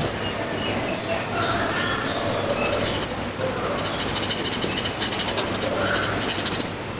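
Graphite pencil shading on paper: bursts of rapid back-and-forth scratchy strokes, a short run about a third of the way in and a longer run from about halfway until shortly before the end.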